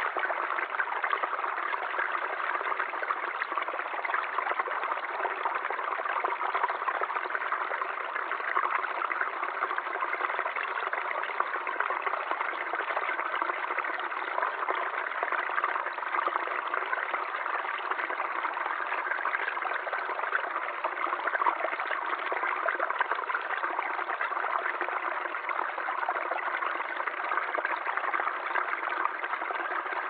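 Small forest stream running steadily, water trickling and splashing over rocks in a little cascade into a shallow pool.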